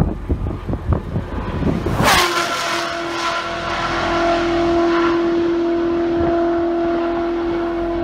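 A high-performance car speeds under the overpass. Its engine rumbles and crackles, then about two seconds in it rushes past with a sudden loud whoosh and a quickly falling pitch. After that it holds one steady, high engine note as it runs away down the highway.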